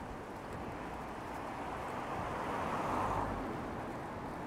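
A car passing on a wet road, its tyre hiss swelling to a peak about three seconds in and then fading.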